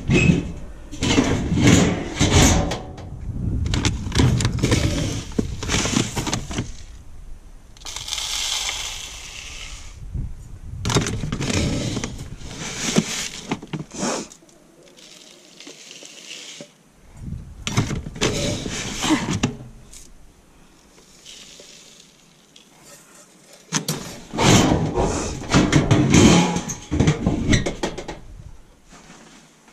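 Galvanized steel trash-can lids and bins clattering and scraping as they are opened and handled, in several bursts of metallic knocks, with a rush of chicken feed being scooped out and poured into a plastic feeder.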